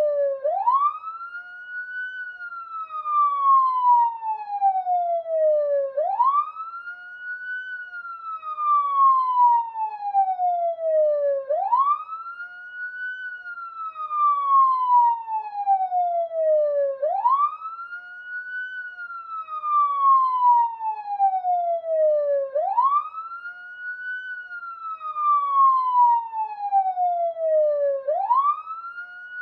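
Police siren sounding a slow wail: the pitch climbs quickly, then falls slowly, repeating about every five and a half seconds, about five times.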